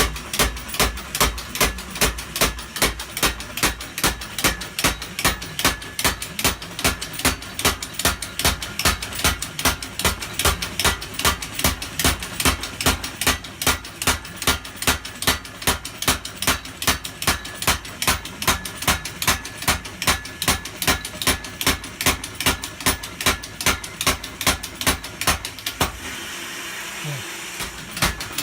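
Custom-built mechanical power hammer running, its ram striking in an even rhythm of about two to three blows a second. It stops for a couple of seconds near the end, then starts striking again.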